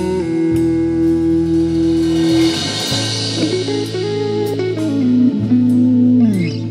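Guitar-led blues-tinged music over a steady bass line: a long held guitar note, then a run of shorter notes, and a note that slides down in pitch near the end.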